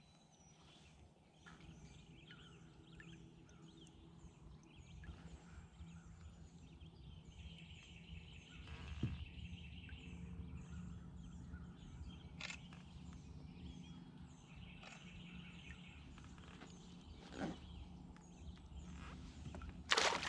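Birds chirping, with many short repeated calls and two stretches of a trilling song, over a low steady background. A brief loud burst of noise comes near the end.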